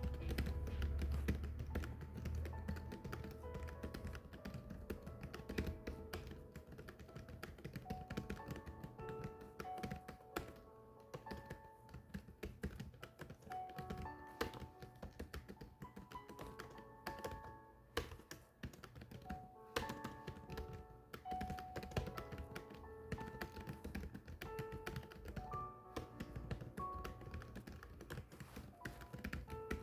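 Continuous, irregular keystroke clicks of someone typing on a keyboard, over soft background music with short melodic notes.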